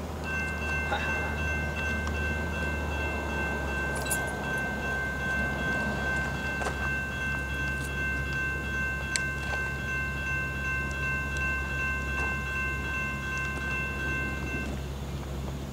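A grade-crossing warning bell sounds as one steady high ringing tone over the low, steady rumble of a slowly approaching diesel freight locomotive; the bell stops about a second before the end.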